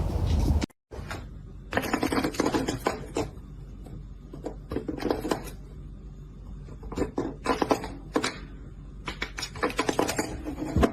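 Irregular clusters of rapid clicks and taps, like hard objects tapping on a surface, over a low steady hum.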